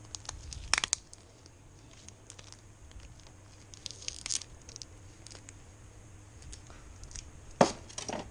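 Hands pulling at sellotaped plastic parts in a polystyrene packaging tray: scattered crinkles, scrapes and small clicks, with a sharp snap about a second in and a louder one near the end.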